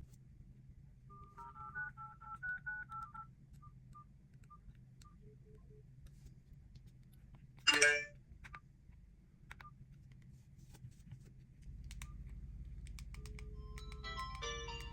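Mobile phone sounds: faint electronic beeps in a short two-note pattern a second or two in, a single short bright chirp near the middle, then a phone ringtone melody starting near the end.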